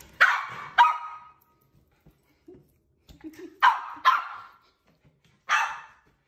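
Small white dog barking at a balloon: five short, sharp barks in three groups, two close together near the start, two more about four seconds in, and a last one near the end.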